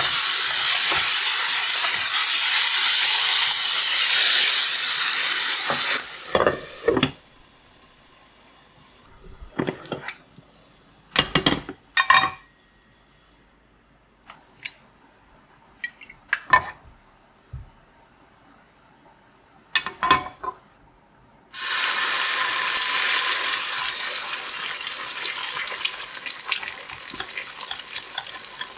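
Food sizzling in a frying pan, the hiss cutting off about six seconds in. Then a quiet stretch of scattered clinks and knocks of utensils against dishes, before the sizzling starts again near the end and slowly dies down.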